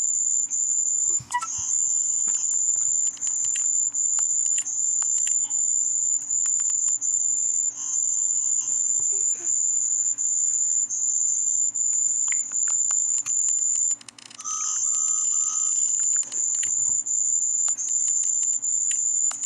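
A high-pitched electronic sound effect: a steady shrill tone broken by short gaps about every three-quarters of a second, with scattered clicks. It drops out briefly near the middle, and three short lower beeps follow.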